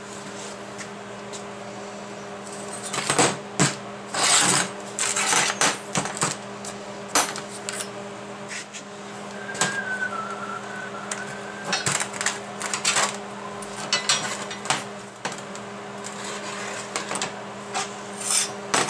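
Metal parts and magnetic clamps being lifted off and set down on a steel welding table: irregular clanks, clicks and knocks, over a steady low hum.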